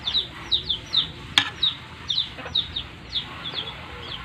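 Chicks peeping: a quick, steady run of short, high cheeps, each falling in pitch, about two to three a second. A single sharp clink comes about a second and a half in.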